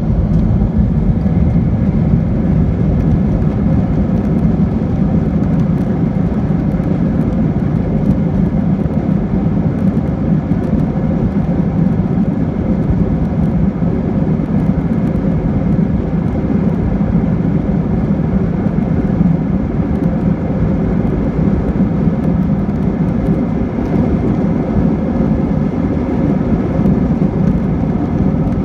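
Airbus A321 airliner's jet engines and airflow heard from inside the cabin over the wing, a steady low rumble as the jet taxis onto the runway for takeoff.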